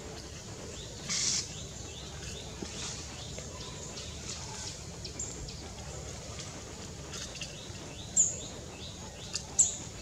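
Outdoor background noise with many small, high bird chirps. A brief rustling hiss comes about a second in, and two loud, very short, very high calls come near the end.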